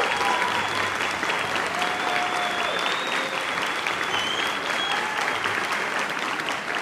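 Concert audience applauding steadily, with a few long whistles held over the clapping.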